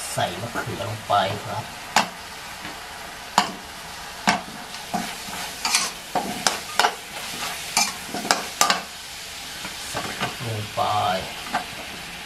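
A metal spatula scraping and knocking against a wok, many times, as chicken stir-fries with a steady sizzle underneath.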